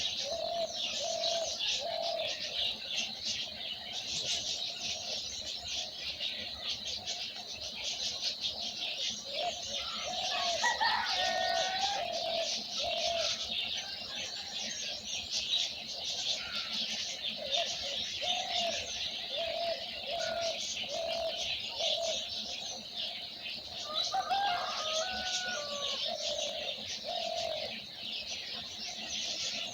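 Chorus of many birds: dense, unbroken high chirping throughout, under a lower call repeated over and over, with a few louder, more varied calls about a third of the way in and again near the end.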